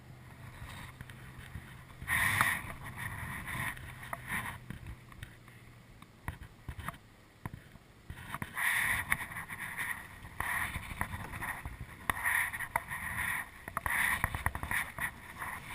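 Canoe being paddled through river rapids: water splashing off paddles and hull in uneven bursts, starting about two seconds in and coming thick again in the second half.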